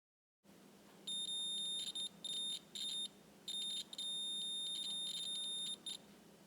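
Digital multimeter's continuity beeper sounding a high steady tone in several stretches, cutting out and coming back as the test probes make and lose contact on the stator's output wires. The tone means the wires are continuous, with no breaks.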